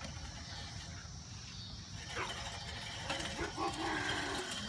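Fiskars StaySharp Max manual reel mower pushed through grass, its spinning reel blades whirring and clattering steadily. Faint squeaks come in about halfway, and a thin high whine sounds near the end.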